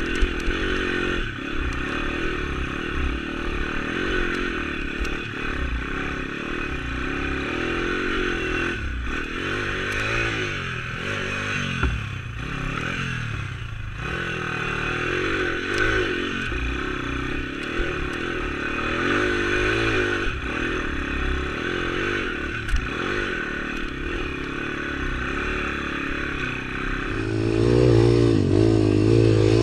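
YX 140 pit bike's single-cylinder four-stroke engine revving up and down under load on a rough off-road climb, with the bike clattering and scraping over stones. Near the end the engine gets louder and holds steadier revs.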